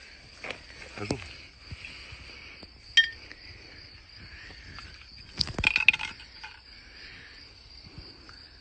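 Waiter's corkscrew working at the top of a wine bottle: a few sharp clicks, a single clink about three seconds in, and a short burst of scraping clicks a little before six seconds. Insects drone steadily and high-pitched throughout.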